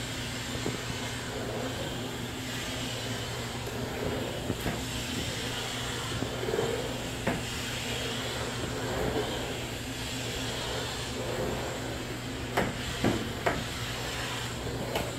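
Oreck steam mop running: a steady hum with a hiss of steam as the padded head is pushed across tile. A few light knocks come near the end.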